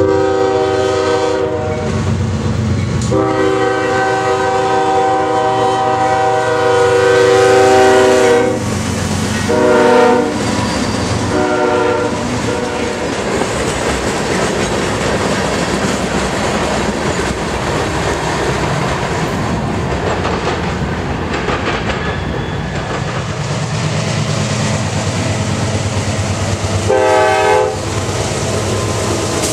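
Diesel locomotive horn sounding a chord in four blasts, long, long, short, long, the grade-crossing signal, followed by freight cars rolling past with a steady rumble and clickety-clack of wheels over rail joints. About two seconds before the end a CSX locomotive gives one more short horn blast as it passes.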